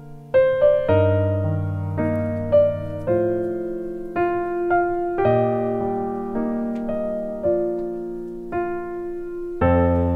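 Background piano music: slow notes and chords, each struck and left to fade, about one a second.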